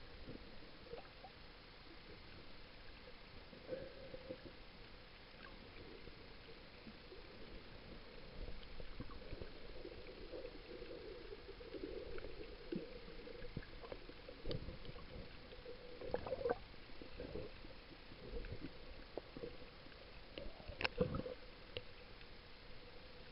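Faint, muffled underwater sound from a camera held just below the water's surface: a low wash of moving water with scattered knocks and clicks, the loudest knock near the end.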